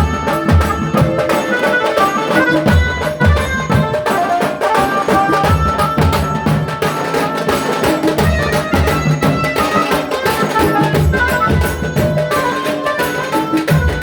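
Tasa drum band playing: fast, dense drumming with a pitched melody of held notes running over it.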